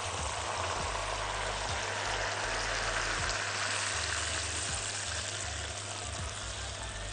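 Milk poured from a measuring jug into a hot pot of browned chicken, butter and lemon juice, sizzling steadily as it hits the hot pan and easing off a little near the end.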